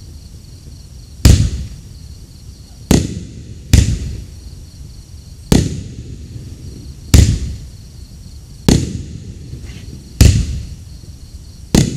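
A 500-gram multi-shot fireworks cake firing: its shells burst in eight sharp, loud bangs, roughly every one and a half seconds. Each bang dies away before the next.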